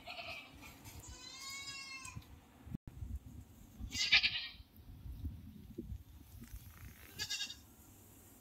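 Young goats bleating: a high, wavering bleat about a second in, a louder, harsher bleat about four seconds in, and a short bleat near the end.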